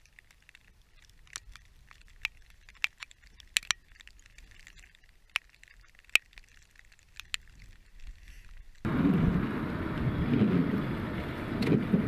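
Scattered sharp ticks of drizzle drops striking the camera over a faint background. About nine seconds in, a sudden cut to loud, steady, rumbling wind and road noise from a moving car.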